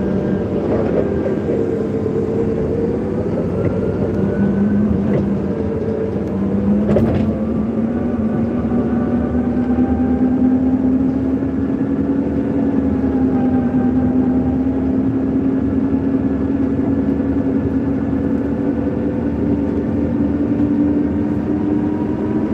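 Forklift engine running while driving, a steady hum that rises a little in pitch about seven seconds in and then holds, over a constant rushing noise. A brief click sounds about seven seconds in.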